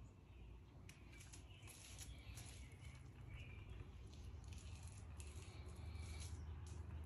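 Near silence: faint background ambience with a low rumble and soft, scattered high hiss.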